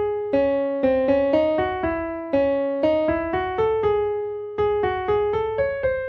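Background music: a keyboard melody of single struck notes, about four a second, each ringing and then fading.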